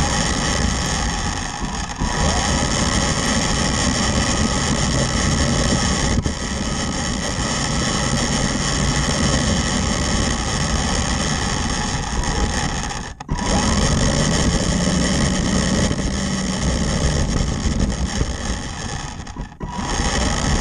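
Tamiya Grasshopper RC buggy driving on tarmac, heard from a camera mounted on the car: its electric motor and gears whine steadily over tyre and chassis rattle noise. The sound drops off briefly twice, about two-thirds of the way through and again near the end, and rises in pitch as the car speeds up after the first drop.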